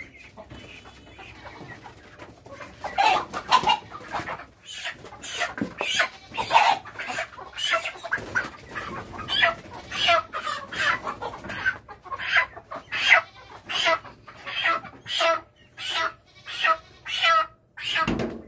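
Farm chickens squawking and clucking in alarm as they are caught and held by the legs: quieter at first, then many short, loud calls, about one or two a second, from a couple of seconds in.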